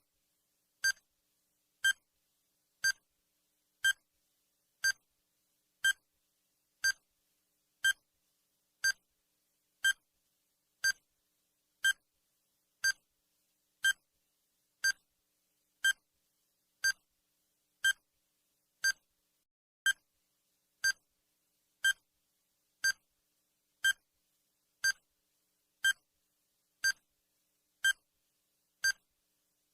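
Countdown timer's ticking sound effect: a short, sharp electronic tick once a second, evenly spaced and all alike.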